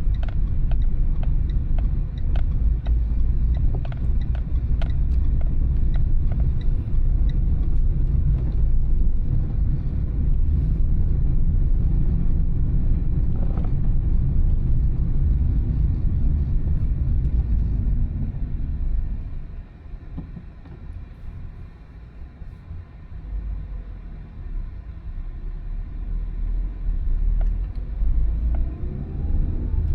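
Car driving, with steady low road and engine rumble and a few small clicks and rattles. The rumble drops about twenty seconds in as the car slows, then builds again with a rising engine note near the end as it pulls away.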